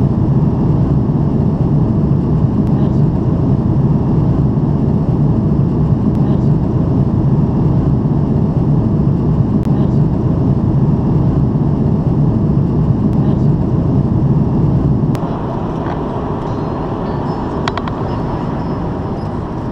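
Steady cabin noise of an airliner in cruise flight: jet engine and airflow noise. About fifteen seconds in it drops suddenly to a quieter, thinner hum, with a few light clicks near the end.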